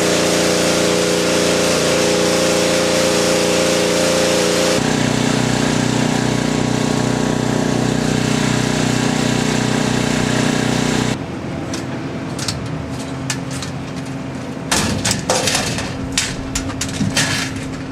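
Engine-driven machinery running steadily, its pitch and tone changing abruptly twice. In the last several seconds a quieter steady hum is broken by clattering and sharp knocks.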